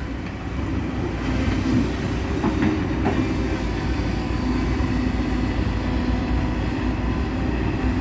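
Heavy diesel engines of a ten-wheel dump truck and an excavator running steadily, a continuous low rumble.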